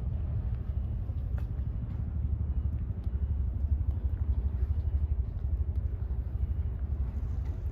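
An engine running steadily, a low pulsing rumble.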